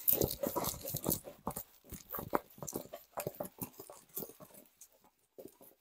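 Diamond painting canvas with its plastic cover film crinkling and crackling as it is rolled backwards, a dense run of crackles that thins out near the end.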